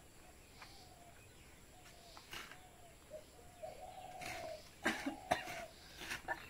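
Faint short whining calls from an animal, repeated about six times, each a steady pitch that dips slightly, one of them longer about four seconds in. A few soft clicks and scrapes from hand-scraping a coconut, most of them near the end.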